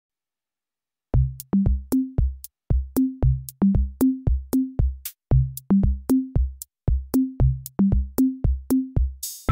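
Background music: after about a second of silence, a track starts with a steady beat of deep bass hits and sharp clicks.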